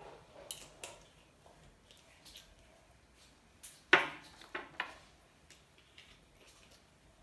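Scattered small clicks and knocks of things being handled and set down, with one sharp knock about four seconds in followed by a few lighter taps.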